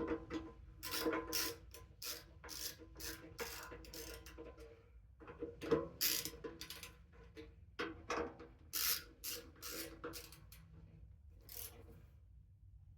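Hand ratchet tightening bolts: a run of short rasping strokes with brief pauses.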